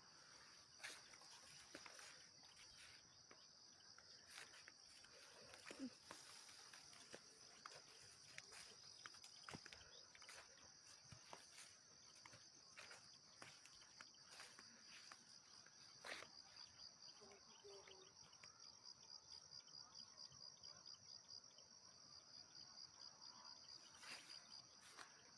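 Faint, steady high-pitched trilling of insects, pulsing more evenly in the second half. Scattered small clicks and knocks sound over it.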